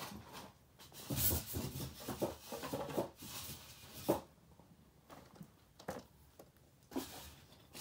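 Broken plastic pieces being handled and dropped into a cardboard box: irregular rustling and light clattering, with a sharper clack about four seconds in and a few faint clicks after.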